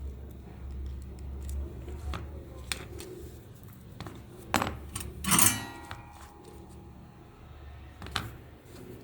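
Small metal parts or tools being handled on a work surface: a few light clicks and taps, and about five seconds in one louder metallic clatter that rings briefly.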